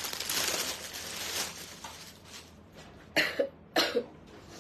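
A woman with a cold coughs twice, about half a second apart, near the end. Before that, plastic packaging rustles.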